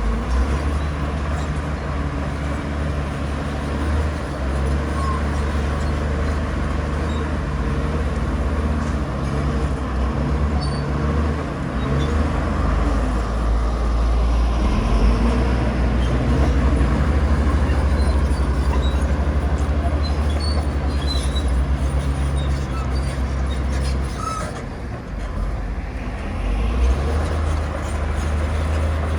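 Heavy diesel earthmoving machinery running steadily with a deep engine drone. It eases off briefly about 25 seconds in, then picks up again.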